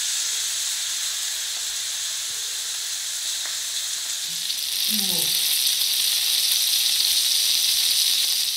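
Chicken breast sizzling as it fries in hot olive oil in a pan, a loud, steady hiss that grows somewhat louder about five seconds in.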